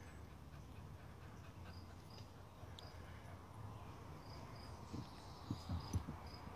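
A beagle digging in loose soil with his head down in the hole: soft scuffing, with a few dull thuds about five to six seconds in. Crickets chirp in a regular rhythm behind it.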